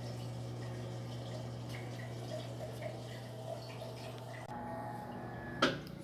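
Whirlpool top-load washing machine draining, its drain pump humming steadily with water running through. About four and a half seconds in the hum changes, and a sharp click sounds near the end, just before the spin cycle begins.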